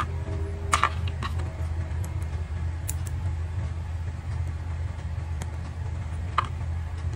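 A few light clicks of plastic building bricks being handled, over a steady low hum.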